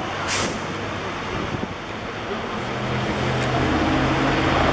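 Street and vehicle noise heard from a San Francisco cable car: a continuous rumble and clatter, a short hiss a moment in, and a low engine hum from a vehicle that builds up over the second half and is loudest near the end.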